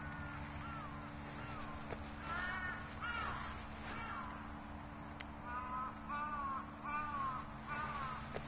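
A crow cawing repeatedly: about a dozen short caws in three bouts, the later ones louder.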